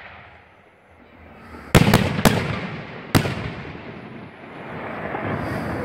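Aerial firework shells bursting overhead: after a quiet first second or so come three sharp bangs in quick succession, followed by a softer continuous rumble.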